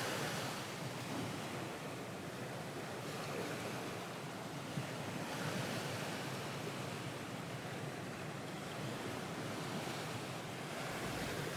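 Ocean waves washing onto a shore, a soft steady surf that swells and fades gently every few seconds.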